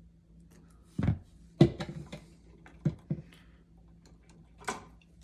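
Handling noise from wires being joined at a wall switch box: a few sharp clicks and knocks of stiff wire and plastic, clustered around a second and a half in, with another near the end.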